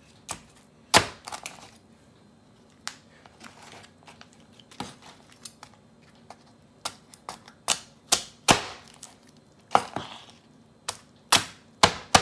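Large kitchen knife chopping through cooked king crab shell onto a wooden cutting board: irregular sharp knocks, a few followed by a brief crunch of cracking shell.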